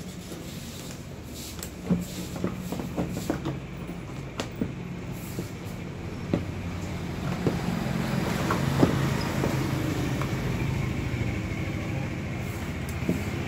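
Scattered light clicks and taps as test-lamp leads are touched to the metal terminals and body of an electric iron and the iron is handled, over a steady low rumble that swells in the middle and eases toward the end.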